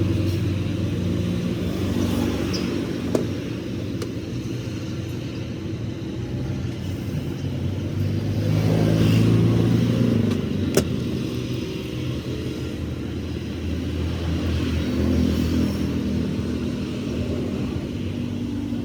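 A motor vehicle engine running, its pitch and loudness rising and falling, with a sharp click twice.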